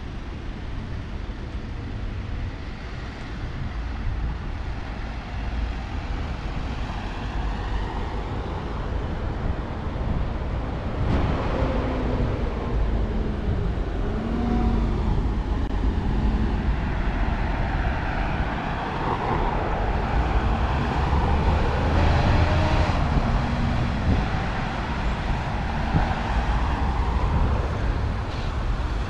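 Road traffic on a multi-lane city street: cars, vans and a city bus driving past, a steady rumble with engine tones rising and falling through the middle.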